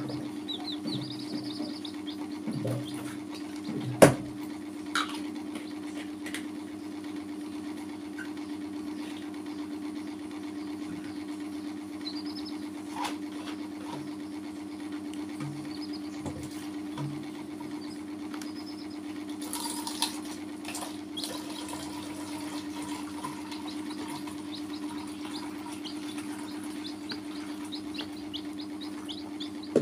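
Chicks peeping: scattered short high peeps, then a quick string of them near the end, over a steady low hum. One sharp knock about four seconds in.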